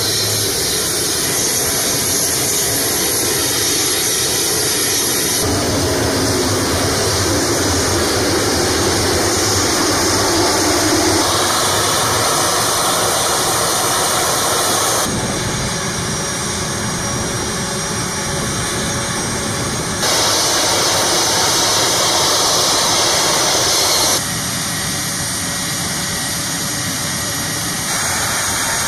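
A-10 Thunderbolt II's twin TF34 turbofan engines running on the ground, a steady loud jet rush and whine. The level and tone jump abruptly every few seconds.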